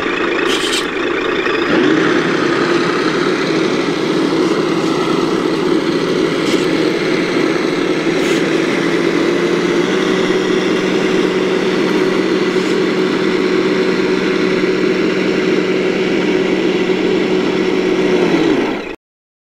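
Amewi 8x8 RC model of an Oshkosh M983 HEMTT truck running steadily with an engine-like drone, holding an even pitch, as it crawls. The sound cuts off suddenly near the end.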